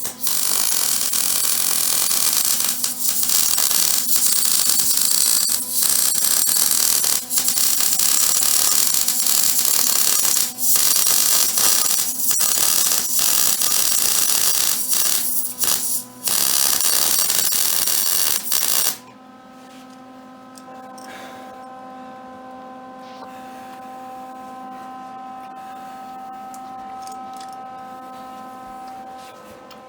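Wire-feed welder arc crackling and hissing while welding a steel ATV frame, in long runs broken by a few brief pauses. It cuts off abruptly about two-thirds of the way through, leaving a steady electrical hum.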